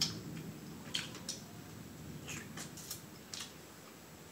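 Eating sounds: short wet clicks and crackles, about seven scattered through a few seconds, as seafood-boil crab and shrimp are pulled apart by hand and chewed.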